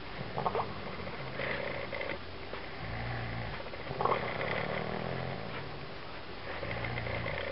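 A man snoring in repeated low breaths, with a short bubbling crackle in the snore twice, about half a second in and again about four seconds in.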